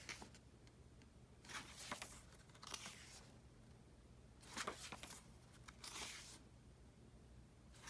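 Glossy pages of an album photo book being turned by hand: four faint paper rustles over quiet room tone.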